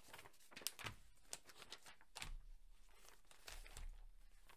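Faint rustling and crackling of paper as the pages of a thin LEGO instruction booklet are turned by hand, a string of short, crisp flicks.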